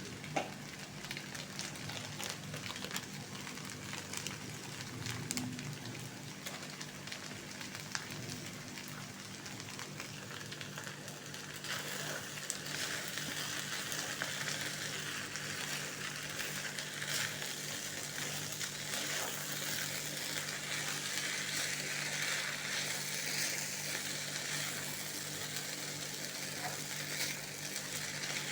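Food sizzling as it is stir-fried in a hot pan, with small clicks and scrapes of a utensil early on; the sizzle grows louder about twelve seconds in.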